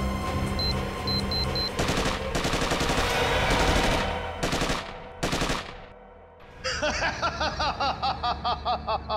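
Dramatic TV-drama sound effects over tense background music: about two seconds in, a dense burst of rapid bangs like gunfire goes off, with two shorter bursts after it. From about seven seconds a man laughs in rhythmic cackles.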